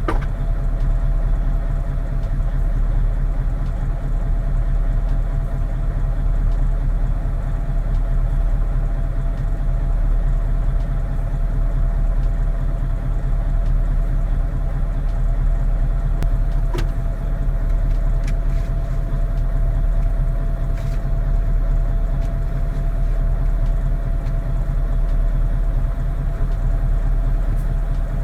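Mercedes-Benz Actros truck's diesel engine running steadily while its air system builds pressure: a low rumble with a steady tone above it.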